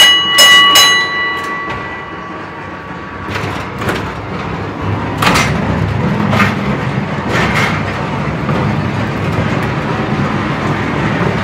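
A bell struck three times in quick succession at the start, ringing on for a couple of seconds. Then the mine-tour train car gets rolling through the tunnel: a steady rumble that grows louder, with occasional clanks from the car.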